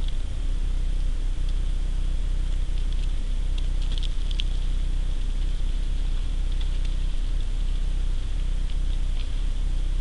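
Faint, scattered ticks and pattering of snow and ice dropping through snow-laden branches, a small cluster about four seconds in, over a steady low hum.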